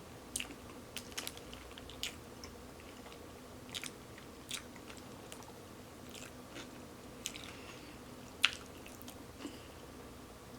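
A person chewing and biting food close to the microphone, heard as scattered short wet mouth clicks and smacks, with one louder click about eight and a half seconds in.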